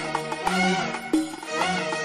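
Background instrumental music: a melodic tune of pitched notes over a steady bass line.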